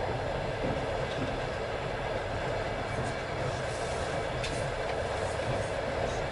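Passenger train running at speed: a steady rumble of the coach's wheels on the rails.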